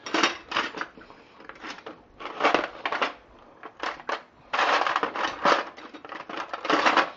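Irregular crunching, scraping rasps of objects being handled, a dozen or so short bursts with a longer dense stretch a little past halfway.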